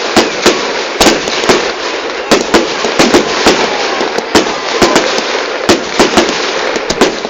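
Fireworks exploding in quick succession: sharp bangs about twice a second over a dense crackle.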